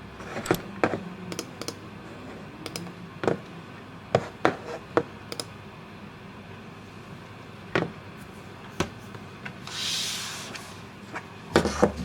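Light, irregular taps and clicks, about a dozen spread over the stretch, with a short hissing rustle about ten seconds in.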